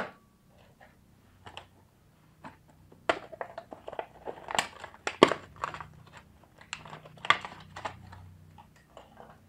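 Hand-handling noises: a sharp click, then a busy run of irregular clicks, taps and plastic crinkling, thickest through the middle few seconds.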